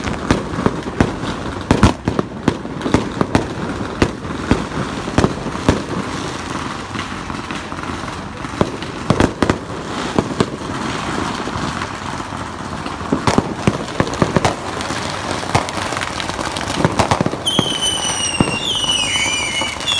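Many fireworks going off at once: frequent sharp bangs over a steady crackle. Near the end, a whistling rocket climbs with a high, wavering whistle.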